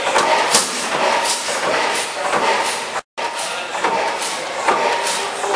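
A 94hp National gas engine running, with a repeated beat of sharp strokes a little over one a second over a steady mechanical din.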